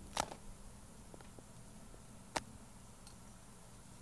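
Quiet, with two short sharp clicks, one just after the start and one just past the middle, and a few fainter ticks between them.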